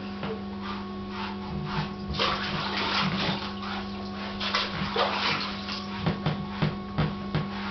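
Bath water sloshing and splashing in a bathtub as a dog is scrubbed with a sponge, in irregular strokes that grow livelier after about two seconds, over a steady low hum.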